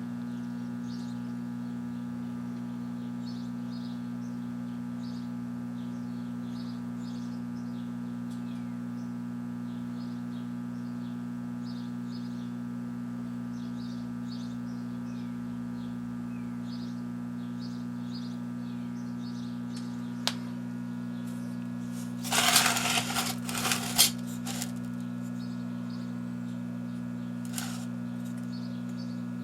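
1984 Kenmore microwave oven running with a brick inside, a steady low hum. About 22 seconds in, a burst of crackling and popping lasts a second or two, with a few lone clicks around it.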